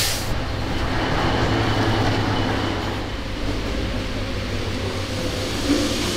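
A steady low hum and rumble, with a heavy tyre on its steel wheel rim being rolled across a concrete floor and a small knock near the end.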